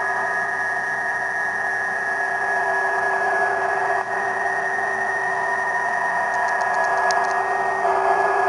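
Ham radio transceiver's audio on an HF band: steady band hiss with several thin, unchanging PSK31 signal tones, one of which cuts off near the end. A short run of light keyboard clicks about six seconds in.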